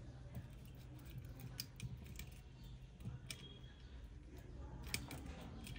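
Faint, scattered clicks and taps of small repair tools handling a phone's parts, over a steady low hum.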